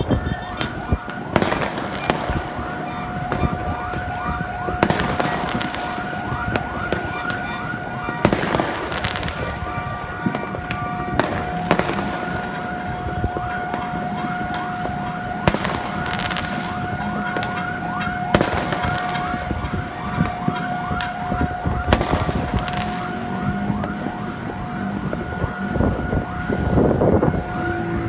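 Fireworks going off in a long run of sharp bangs. A steady tone is held from about ten seconds in until near the end, and many short pitched tones sound over the bangs.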